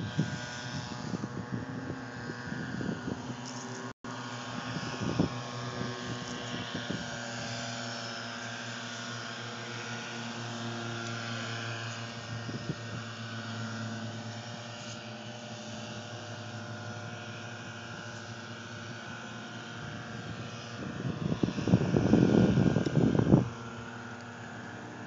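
A steady engine drone made of several even tones. A loud rumbling burst on the microphone lasts about two seconds near the end.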